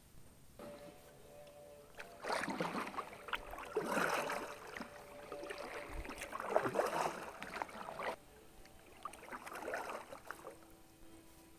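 Kayak paddle strokes dipping and splashing in calm lake water, a splashy stroke every two to three seconds.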